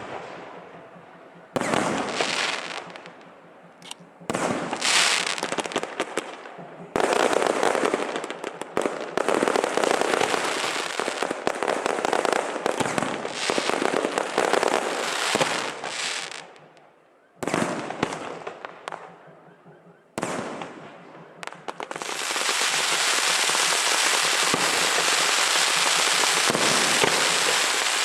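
Fireworks and firecrackers going off: a series of loud bangs, each followed by crackling that fades. About 22 seconds in they turn into a continuous, dense crackle.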